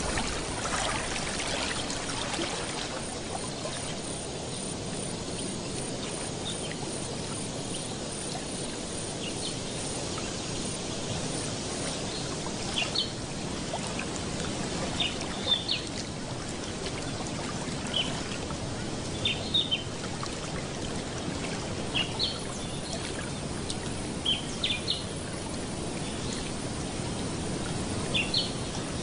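Steady trickling, lapping water. From about twelve seconds in, short high bird chirps come in small clusters every second or two.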